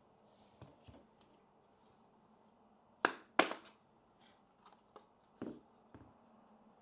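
Hard plastic and metal keyboard parts being handled: two loud sharp clacks close together about three seconds in, with lighter taps and clicks before and after.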